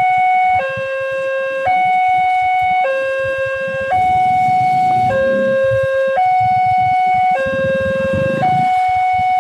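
Railway level-crossing electronic warning alarm sounding a two-tone high–low pattern, switching pitch about once a second, which signals that a train is approaching and the barrier is down.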